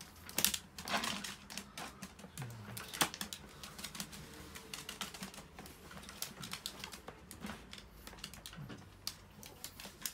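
Irregular light clicks and rattles from a wire dog crate being tended, scattered through the whole stretch with no steady rhythm.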